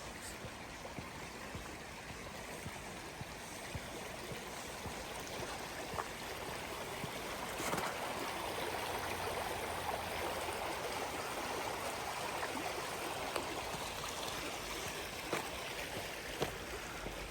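Stream of water flowing: a steady rush of water, a little louder from about six seconds in, with a few brief sharp clicks.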